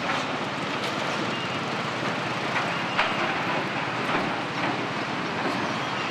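Steady rumble of vehicles and machinery, with a few short clanks and knocks scattered through it.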